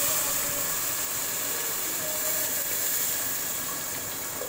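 Milk pouring from a plastic bottle into a hot pot of ghee-roasted vermicelli, hissing and sizzling steadily as it hits the hot metal and slowly dying down.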